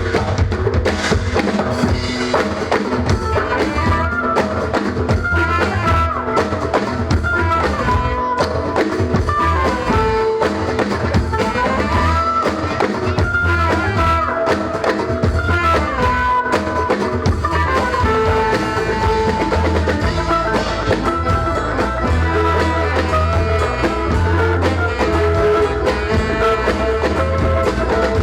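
A band playing a zapin tune: a melody with sliding, ornamented notes over steady drumming and bass.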